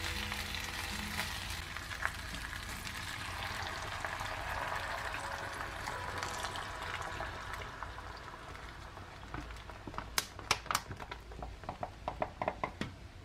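Pork knuckles sizzling in a hot enamel roasting pan while light beer is poured in from a can. A steady sizzle gives way to sharp crackling pops in the last few seconds as the liquid spreads into the hot fat.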